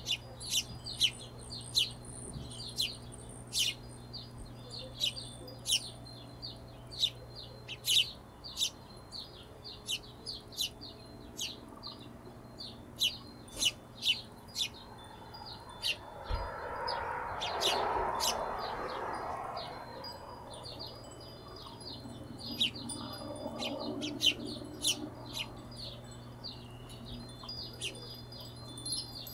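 Hummingbirds chirping: many short, sharp, high chirps repeated irregularly, over a steady low hum. A softer rushing noise swells for a few seconds just past the middle.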